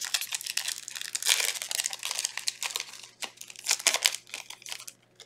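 Foil booster pack wrapper crinkling and tearing as it is opened, a busy run of rustles and crackles that stops near the end.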